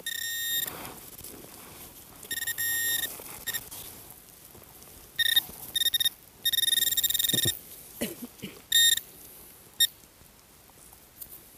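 Garrett AT Pro metal detector beeping: short and longer bursts of one high steady tone, about half a dozen over the span, as the coil is swept over a target in the ground. Faint scraping sounds come between the beeps.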